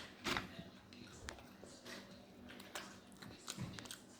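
Quiet sounds of eating a chicken tender: a few faint clicks and short soft handling noises as it is dipped and bitten.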